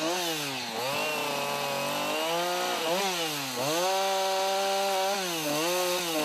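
Chainsaw cutting into a wood carving, its engine pitch rising and falling again and again, every second or so, as it revs and slows in the cut.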